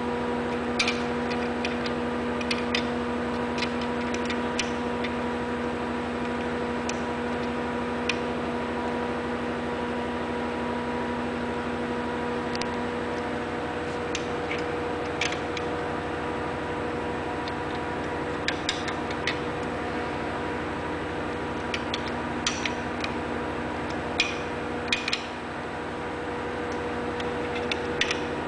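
A steady electrical hum runs throughout, with scattered small clicks and taps from hand work on the printer's printhead mount as its screws are adjusted and the gap is checked with a card. The clicks come irregularly, a few clustering in the second half.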